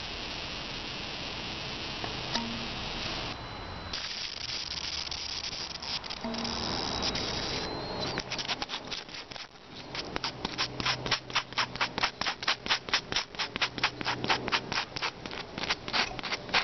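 Hand rubbing on a bicycle tyre and inner tube: a steady scrubbing hiss for about the first eight seconds, then quick rhythmic scuffing strokes, about four a second, on the tube around a small thorn puncture.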